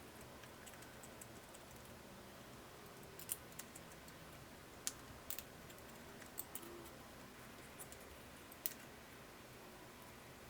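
Scattered light clicks and taps at irregular intervals over a faint steady hiss.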